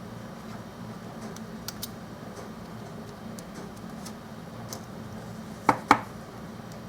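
Small tools and tiny phone parts being handled: scattered faint ticks, then two sharp clicks in quick succession near the end, over a steady low hum.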